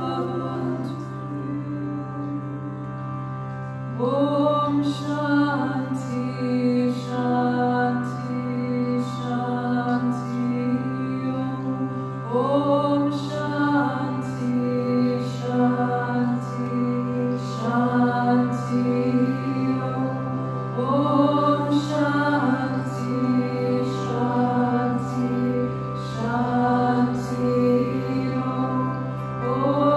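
Voices singing a slow mantra chant over a steady low drone, with a hand frame drum struck softly about once a second.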